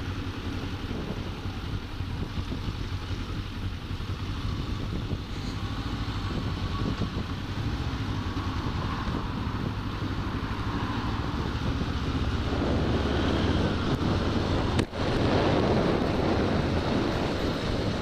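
Kawasaki motorcycle engine running while riding, with wind noise on the microphone. It gets louder about two-thirds of the way through, with a brief dip shortly after.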